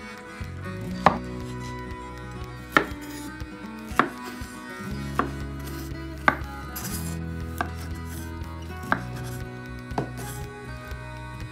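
Wide cleaver-style kitchen knife chopping through strawberries onto a wooden cutting board as the hulls are cut off: about eight sharp knocks of the blade on the board, roughly one a second, with soft background music under them.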